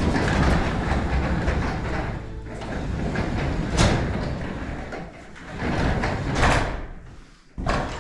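Sectional garage door rolling along its tracks, with a rumble that eases off after about two seconds and then a few knocks and thuds.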